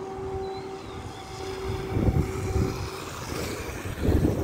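Wind gusting on the microphone, twice, about two seconds in and again near the end, over a steady distant engine hum that fades out before the second gust. Faint bird chirps.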